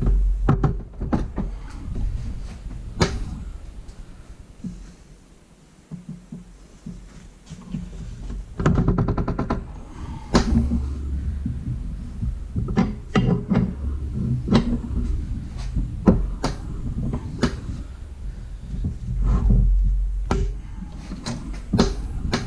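Hand tools working the forcing screw of a ball joint press that seats a new ball joint into a steel upper control arm: scattered metal clicks and knocks, with a fast run of ratchet clicks about nine seconds in.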